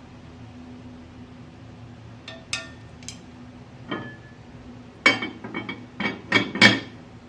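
Cookware clinking and clattering against a pot: a few light clinks, then a run of louder clattering knocks near the end, over a faint steady hum.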